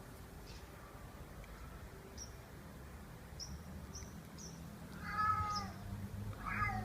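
Domestic cat meowing twice near the end: a longer meow that falls slightly in pitch, then a shorter one.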